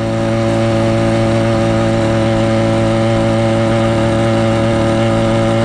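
Firestorm Zeda 80 two-stroke motorized-bicycle engine, exhaust cap drilled with a 1/4-inch hole, running under load at a steady high pitch while the bike cruises.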